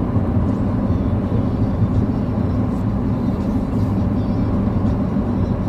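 Steady low road and engine rumble inside a car's cabin as it cruises along a highway.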